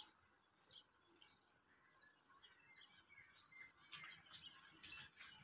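Faint, scattered chirping of small birds, with a few faint clicks about four and five seconds in.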